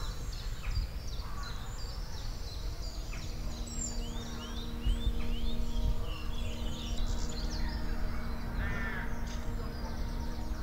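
Outdoor ambience of many small birds chirping and whistling, with a crow cawing twice about nine seconds in, over a steady low rumble. A faint, soft sustained musical tone comes in about three seconds in.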